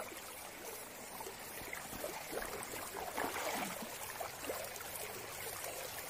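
Shallow stream running over stones, with water sloshing and splashing about two to four seconds in as hands grip and lift a rock out of the water.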